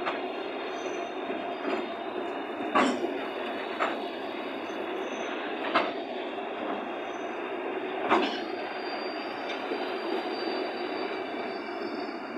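Freight train of hopper wagons rolling past with a steady rumble of wheels on rails and a thin, high wheel squeal. Four sharp metallic clanks come at irregular intervals, at about three, four, six and eight seconds in.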